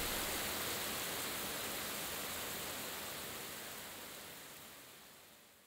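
Artificial rain of the Rain Room installation falling: an even hiss that fades out slowly.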